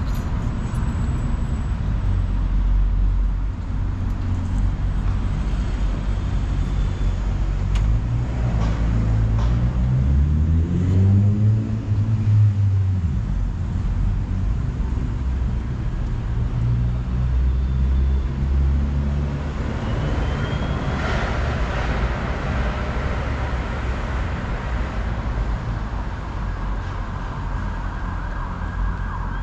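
Road traffic on a city street: steady engine rumble and tyre noise from passing cars, buses and lorries. About eight seconds in, one vehicle's engine climbs in pitch as it pulls away, then drops off a few seconds later.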